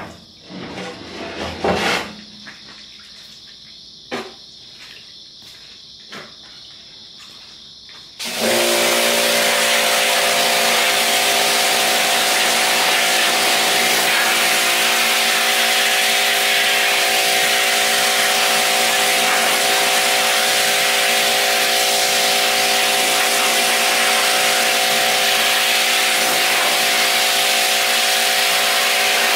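A few metal clanks as a steel cooking grate is slid out of a cabinet smoker. About eight seconds in, a pressure washer starts suddenly and runs steadily, its jet spraying the inside of the steel smoker.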